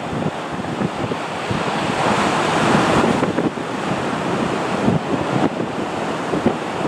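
Wind buffeting the microphone in gusts, over a steady rushing noise that swells about two seconds in, from the Pratt & Whitney JT8D jet engines of a Boeing 737-200 taxiing past.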